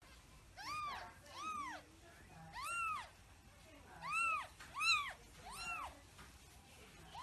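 A very young kitten mewing: six short, high-pitched mews, each rising and then falling in pitch.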